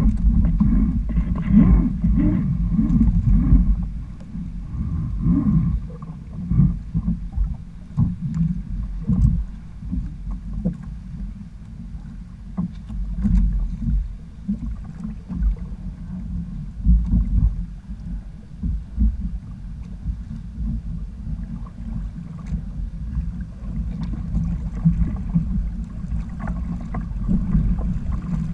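Wind rumbling on the microphone and water lapping and slapping against the hull of a sailing kayak under way, rising and falling in gusts with occasional short slaps.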